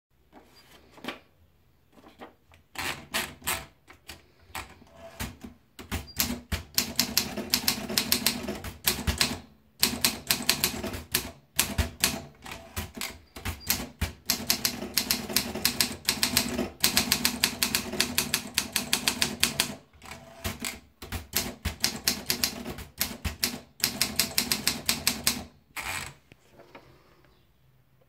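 Olympia SM2 manual portable typewriter: a few scattered clicks as paper is fed in, then fast runs of key strikes broken by short pauses. The typing stops about two seconds before the end.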